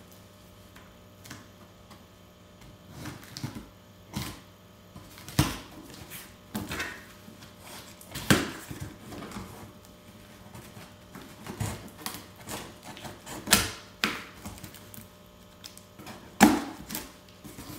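Scissors cutting through packing tape on a cardboard box: irregular snips and scrapes of the blades on tape and cardboard, with a few louder sharp snaps scattered through.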